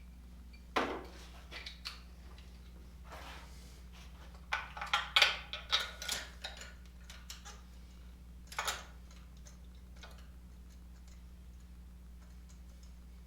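Metal hand tools clicking and clinking in separate strikes: a knock about a second in, a quick run of clicks in the middle and one more clink later, over a low steady hum.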